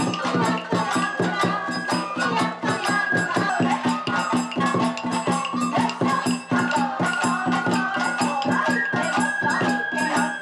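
Sagichō festival hayashi: taiko drums beaten in a fast, even rhythm over flute, shamisen and kane bell.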